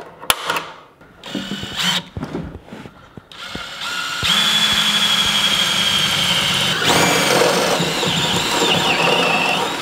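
Yellow DeWalt cordless drill boring through the steel stiffener bracket's holes into the Tacoma's bed side. After a few sharp knocks, the drill runs steadily under load for about three seconds on a small pilot bit. After a short break it runs again with the larger half-inch step bit, its pitch wavering, and stops suddenly at the end.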